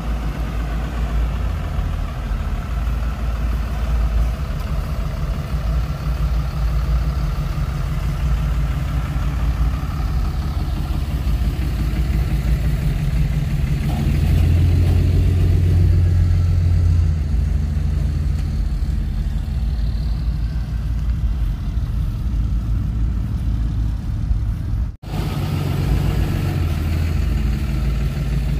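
Car engine idling with a deep, steady exhaust rumble. It swells louder for a few seconds around the middle, drops out for an instant near the end, then carries on.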